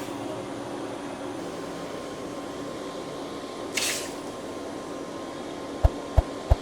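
Forge running with a steady rushing air noise from the blower and fire, a brief hiss about four seconds in. Near the end come three sharp hammer strikes on the steel sickle blade, each with a short ring.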